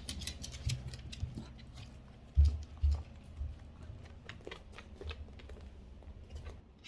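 A dog moving about indoors: irregular light clicks and ticks, with two low thumps about two and a half and three seconds in.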